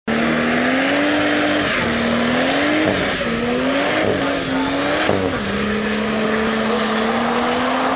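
Ford Falcon doing a burnout: the engine held at high revs, its pitch surging up and down several times, then holding steadier and a little lower after about five seconds, over the screech and hiss of the rear tyres spinning on the tarmac.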